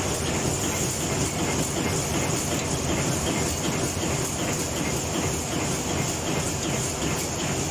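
Screw-making machine running with a steady rhythmic clatter, small steel screw blanks dropping from its chute into a metal bowl.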